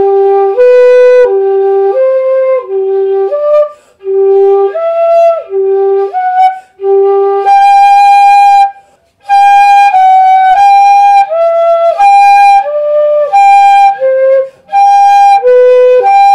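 Pífano, a Brazilian transverse fife, in G playing an interval exercise. The low G alternates with notes that climb a step wider each time up to the G an octave above. Then the high G alternates with notes falling back down, one note per beat with short breath breaks.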